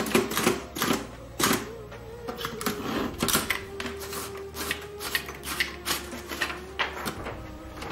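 Typewriter keys clacking in quick, irregular strokes, then the sheet being pulled out of the roller near the end. A faint steady low tone sits underneath.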